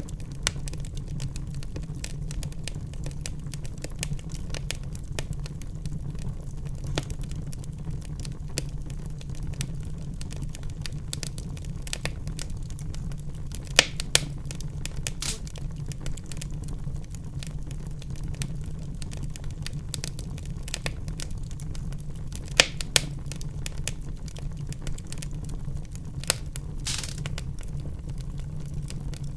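Wood fire in a fireplace crackling, with a steady low rumble of the flames and frequent small snaps. A few louder pops stand out, about halfway through and again a little later.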